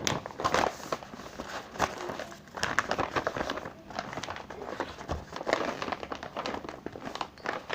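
Irregular crinkling and rustling with many small clicks, like something being handled at close range.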